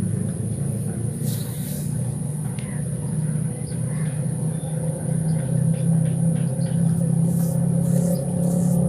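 An engine running steadily with a low, even hum, growing louder about halfway through, under a constant high-pitched whine and a few faint ticks.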